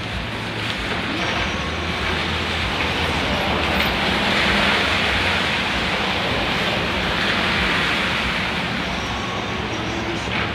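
Traffic on a wet, rainy street: a steady hiss of tyres on wet road over a low engine rumble, swelling to its loudest around the middle as a vehicle passes and then easing off.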